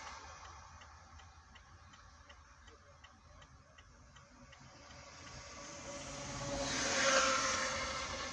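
Faint steady ticking, about two to three ticks a second, for the first half. Then a vehicle passes, its noise swelling to a peak about seven seconds in and fading.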